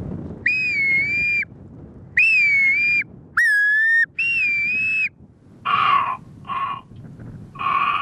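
A man whistling through cupped hands in imitation of a grey plover's plaintive song: four long, clear whistles of about a second each, the third lower and rising at its start. Three shorter, hoarser sounds follow near the end.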